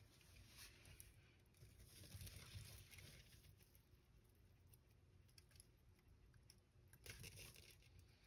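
Near silence, with faint scattered clicks and soft rustles.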